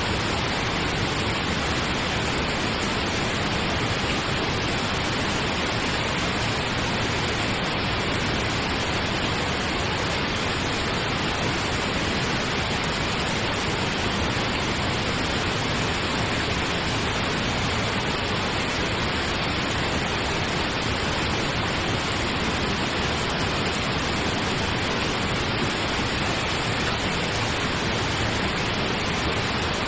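Steady pink noise: an even, unchanging hiss across the whole range, like a distant waterfall.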